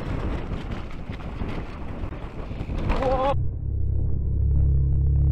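Kellys Swag enduro mountain bike descending a dirt forest trail: tyre roar and rattling clicks over the ground, with wind on the camera microphone. About three seconds in a short warbling brake squeal comes as the rider pulls the lever hard and the bike slides. The sound then turns into a muffled, heavy low rumble.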